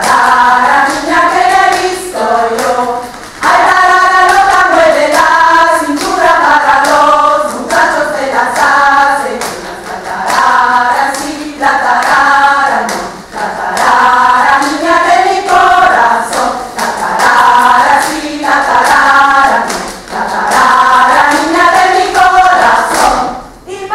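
A group of voices singing a melody together, with hand claps throughout.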